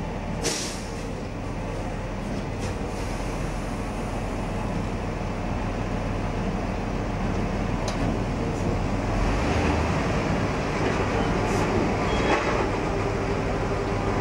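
A heavy engine running steadily at a low rumble, slowly getting a little louder, with a few light knocks.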